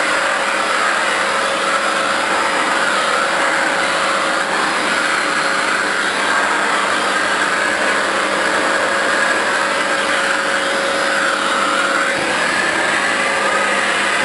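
Vacuum cleaner running steadily with a Vac-U-Mitt dusting mitt over its head, a constant motor hum under rushing air whose pitch wavers up and down as the mitt is moved over the surface.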